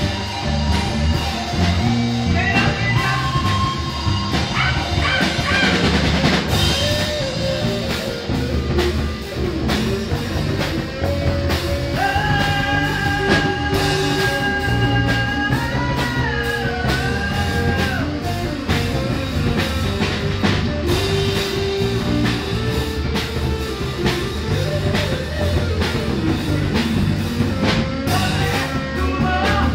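Rock band playing live in rehearsal: drum kit, bass guitar, electric guitars and keyboards at a steady level. About halfway through, a long held lead note sounds over the band and bends up and back down in pitch.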